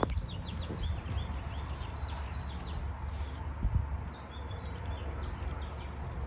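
Small birds chirping, a quick run of chirps in the first second and a few fainter ones later, over a steady low rumble, with a single thump a little past the middle.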